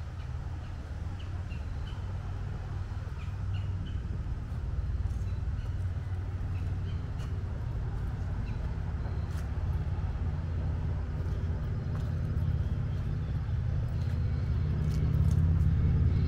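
Outdoor ambience: a steady low rumble that builds slowly louder toward the end, with a few faint, short bird chirps.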